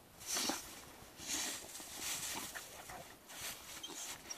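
A Bernese mountain dog rolling and squirming on its back in snow: irregular bursts of snow crunching and swishing under its body, four or five of them.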